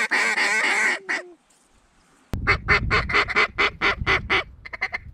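Duck calls being blown hard to work a flock overhead. A fast rolling chatter runs for about the first second, then after a short gap comes a run of about ten evenly spaced loud quacks, ending in two quick stuttering feed-call runs.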